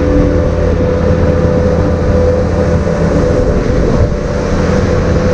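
Skid steer engine running steadily at working speed, with a steady high tone riding over the engine noise.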